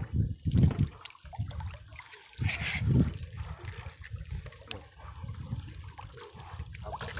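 Sea water sloshing and splashing against the side of a small fishing boat, in uneven surges, with one stronger splash about two to three seconds in.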